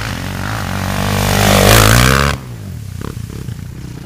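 Quad bike engine revving hard, rising in pitch and loudness under a wide hiss. About two and a half seconds in it drops suddenly to a quieter, lower engine sound.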